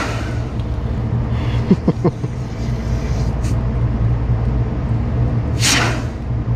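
Steady low mechanical hum of running machinery, with three short squeaks about two seconds in and a brief hiss near the end.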